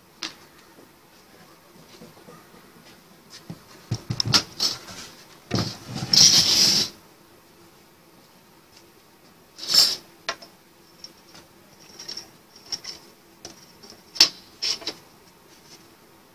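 Workshop handling noise: knocks and clatter as thin metal strips and a wooden hive box are moved about on a plastic table, loudest in a noisy stretch of over a second about a third of the way in, with a few sharp clicks near the end.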